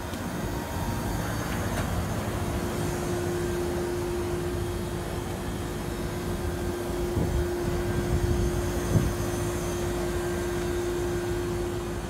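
Mitsubishi Heavy Industries commercial air-conditioner outdoor units (Saison PAC series, R407C) running: steady fan and compressor noise with a constant hum. A few dull bumps come between about seven and nine seconds in.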